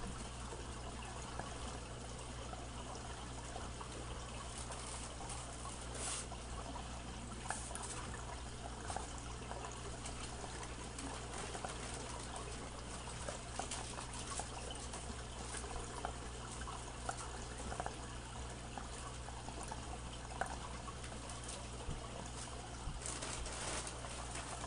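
Steady trickle of water and low hum from a running aquarium filter, with scattered small rustles and crinkles from cardboard and packing material being handled.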